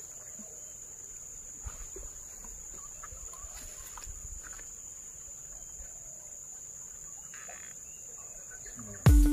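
Steady high-pitched buzzing of insects, with a few faint rustles and knocks over it. Loud electronic background music starts suddenly near the end.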